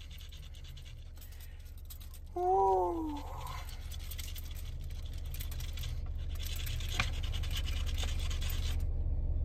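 Scratch-off lottery ticket being scratched, a dry rasping crackle for several seconds in the second half, over a steady low hum inside the car. A brief voice sound comes about two and a half seconds in.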